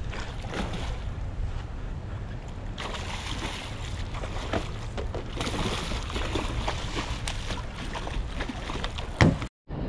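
A large hooked salmon thrashing and splashing at the water surface, in repeated short splashes, over a steady rumble of wind on the microphone. Near the end comes a sharp knock, then the sound cuts out for a moment.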